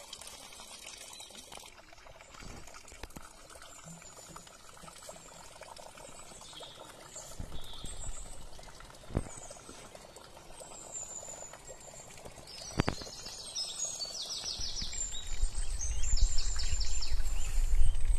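Small birds chirping, with two quick high trills in the second half, over a faint steady trickle of running water. A low rumble builds in the last few seconds.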